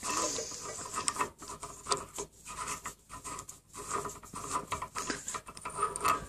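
Hand turning the steel lower body of a Detroit Diesel Series 60 electronic unit injector against the threaded upper section held in a vise: irregular rubbing and scraping with small clicks as the threads fail to catch.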